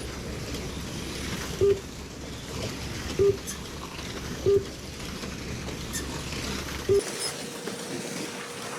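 Slot-car race running: a steady mechanical run noise with a low rumble, punctuated by four short electronic beeps at uneven intervals of one to two and a half seconds, typical of a lap counter registering cars crossing the line. The low rumble cuts out about seven seconds in.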